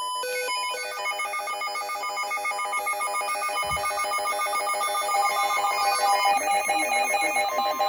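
Emergency alert attention tone: a harsh, rapidly warbling electronic alarm of several overlapping tones that rings like a telephone bell, signalling that a warning broadcast is about to follow. A brief low thump sounds about halfway through.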